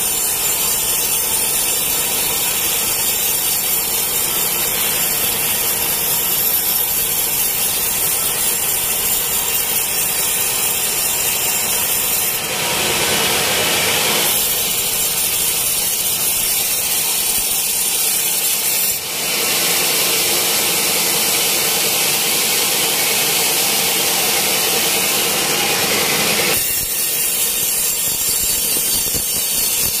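Vertical band sawmill blade cutting lengthwise through a large teak log, a loud, steady sawing noise over the running machine. The tone shifts abruptly a few times.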